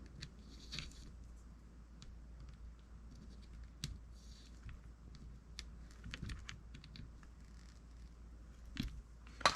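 Scattered small clicks and light scrapes of metal fishing-reel parts being handled and fitted together as a Gomexus SX450L reel is put back together, with a louder clatter of handling near the end.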